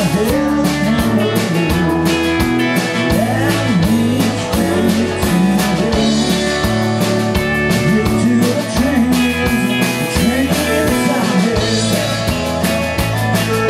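Live band playing a rock-and-roll song: electric guitars, acoustic guitar and a drum kit keeping a steady beat.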